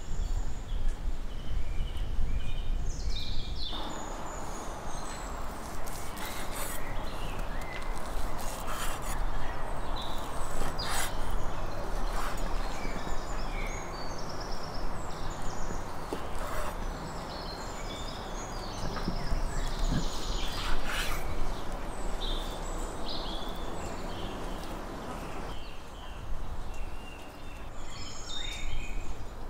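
Outdoor ambience: small birds chirping over and over, with a steady background hiss that sets in a few seconds in and drops away abruptly near the end, and a few sharp clicks.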